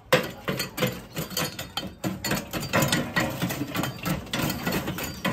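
Leftover charcoal and ash raked and scraped around the metal charcoal grate of a Weber charcoal kettle with a hand tool: a fast, continuous rattle of scraping and clinking that starts with a sharp knock.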